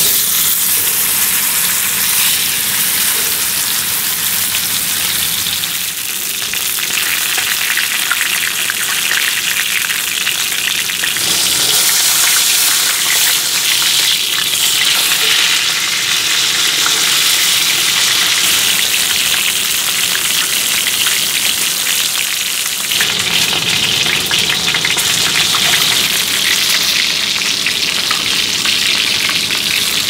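Rain falling steadily, a dense crackling hiss.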